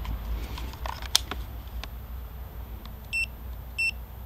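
Two short electronic beeps from a digital ammeter, about two-thirds of a second apart near the end, with a few faint clicks before them.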